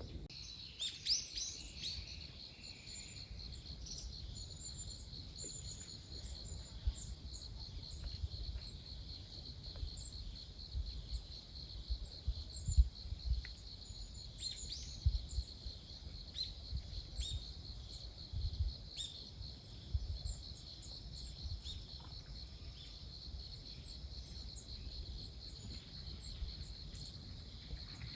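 Insects trilling in a steady, high, pulsing drone, with scattered bird chirps and low wind gusts buffeting the microphone.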